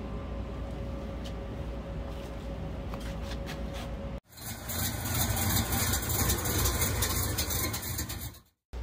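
A steady low hum of room tone, then after a sudden cut about four seconds in, a louder engine running at idle, which stops abruptly just before the end.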